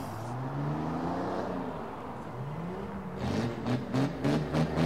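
A car engine revving: one slow climb in pitch that then eases off, followed by a run of quick rev blips near the end. The car is a lowered Volvo estate.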